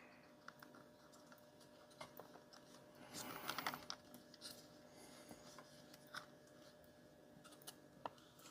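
Faint small clicks and a brief light rustle of small chainsaw parts being handled as the carburetor gasket is fitted onto the intake; otherwise near silence.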